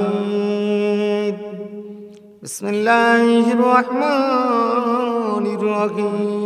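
A man reciting a Quranic verse in a slow, melodic chant, holding long notes with gliding ornaments. There is a breath pause and one short click about two and a half seconds in, then the recitation goes on.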